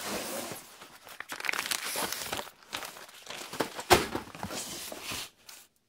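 Cardboard parcel and paper padded envelope being handled: crinkling and rustling of paper, cardboard and packing tape, with a sharp thump a little under four seconds in.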